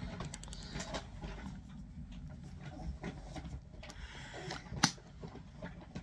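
Small clicks and light rustles of a lip-gloss box and tube being handled and opened, with one sharp click about five seconds in, over a faint low hum.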